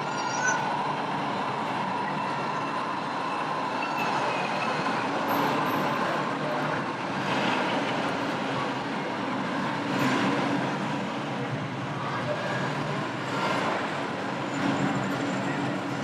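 Steady background din of a crowded exhibition hall.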